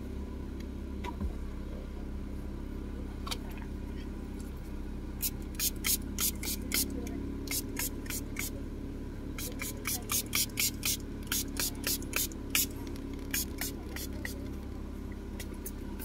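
An aerosol can of mosquito repellent sprayed in many short hissing bursts, up to about four a second, starting about a third of the way in and stopping a little before the end. Under it, a Mitsubishi Lancer's engine idles steadily.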